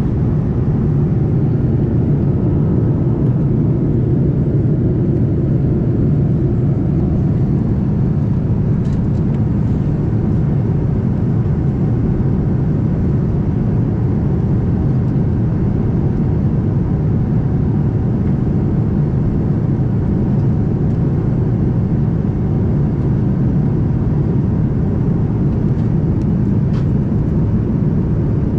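Steady low cabin noise of a Boeing 787-9 Dreamliner in flight, heard inside the cabin: the even rush of its engines and the airflow over the fuselage.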